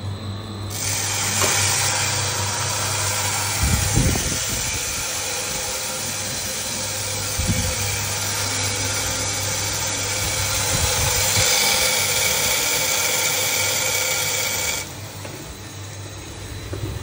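A charge of about 7 kg of green coffee beans pouring from the hopper into the preheated drum of a Wave Roaster drum coffee roaster: a loud rushing rattle that starts about a second in and cuts off sharply near the end, with a couple of knocks. Underneath, the roaster's motor hums steadily.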